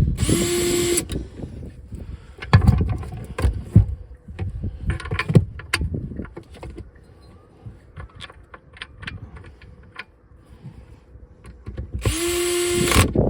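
Power drill/driver run twice in short bursts of about a second each, one at the start and one near the end, spinning up to a steady whine as it drives the light fitting's bolts. Between the bursts, sharp knocks and clanks of metal parts being handled.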